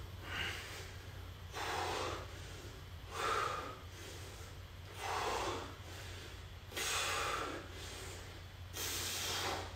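A man breathing hard under strain while holding a core exercise, with about six heavy breaths spaced every second and a half to two seconds.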